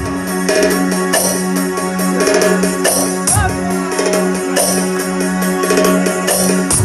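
Instrumental break in an Albanian folk song: a steady held keyboard drone under quick tambourine and drum beats.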